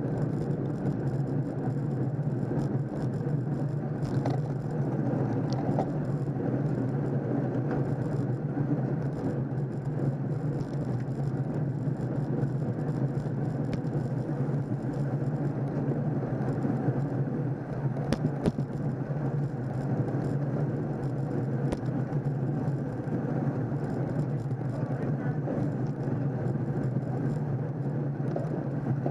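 Steady rushing ride noise from a camera on a road bike moving in a pack of cyclists: wind on the microphone and tyres on asphalt, with a low steady hum underneath and a few sharp clicks.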